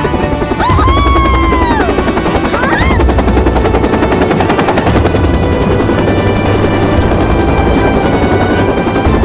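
Cartoon helicopter sound effect: a rapid, even rotor chopping over background music, with a brief high sliding cry that rises and falls about a second in.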